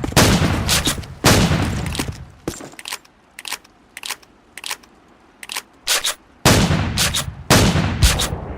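A string of about a dozen shotgun blasts, each a sharp crack with a long echoing tail. They are loud at first, fainter and more spread out in the middle, and loud and closer together again near the end.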